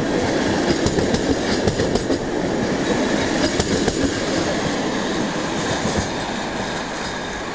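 Passenger coaches of a departing train rolling past at close range, the wheels clacking over rail joints. The sound grows quieter in the second half as the last coach pulls away.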